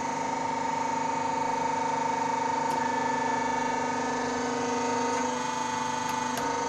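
Hydraulic hose crimping machine's electric motor and hydraulic pump running steadily, a constant hum with an even pitch.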